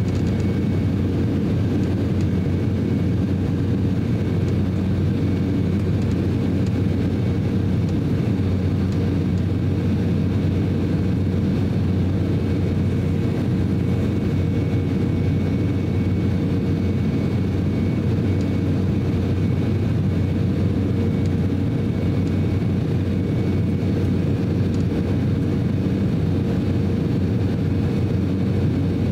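Steady cabin noise inside an Embraer E190 airliner in flight: the drone of its twin General Electric CF34-10E turbofan engines and the rush of air past the fuselage, with a low hum and faint steady whining tones.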